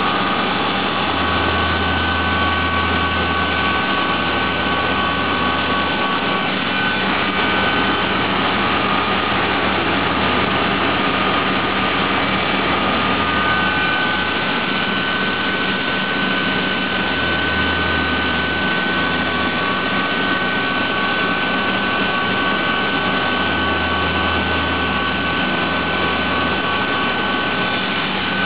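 CNC vertical mill cutting 4140 steel with a carbide end mill under flood coolant: a steady high spindle whine over the hiss of coolant spray and cutting. A low hum comes and goes a few times.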